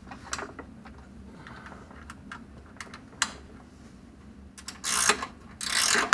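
Hand tools on the running-board mounting bolts: scattered metal clicks and taps, then two short bursts of rapid ratcheting near the end.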